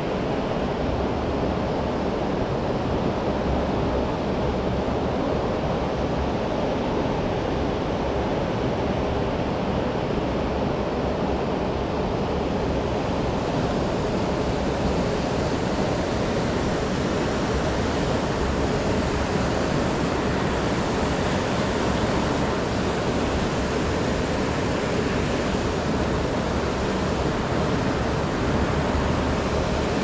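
Steady rush of a fast-flowing river, an even, unbroken noise of water that is deepest in the low range and never lets up.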